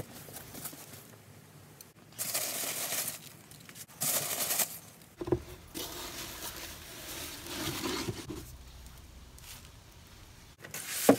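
Cardboard box being unpacked by hand: rustling of foam packing peanuts and crinkling plastic wrap, in a few short bursts of scraping and crinkling, with a sharp click near the end.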